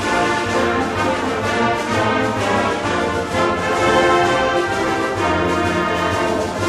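Orchestral music led by brass, playing held chords over a steady bass.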